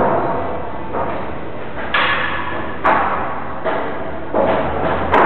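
Heavy construction blows, like hammering, about six irregular knocks roughly a second apart, each ringing on with a long echo off bare brick walls in a large empty room.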